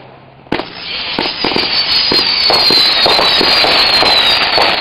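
Brothers Americana 37-shot firework cake firing: a shot about half a second in, then a rapid run of further shots under loud, dense crackling, with high whistling tones that slowly fall in pitch.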